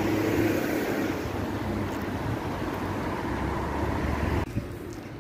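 Steady low rumbling outdoor noise that drops away suddenly about four and a half seconds in.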